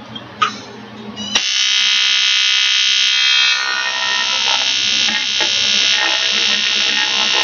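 AC TIG welding arc on thick 6061 aluminium from an Eastwood TIG 200 AC/DC, buzzing loudly and steadily. A faint hiss and a click come first, then about a second and a half in the arc buzz comes up sharply and holds.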